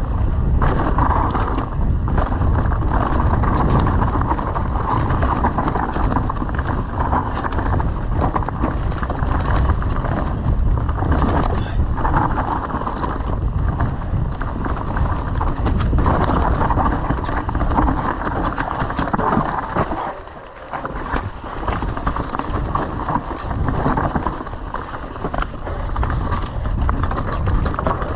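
Mountain bike riding fast down a dirt trail: a continuous rumble of tyres on the ground with steady rattling and clattering from the bike, easing off briefly about twenty seconds in.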